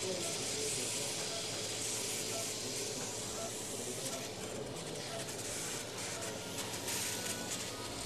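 Steady hiss of a low-quality phone recording, with faint, indistinct voices of a small crowd of people.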